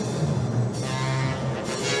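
Background music: a sustained low note with higher parts swelling in about a second in.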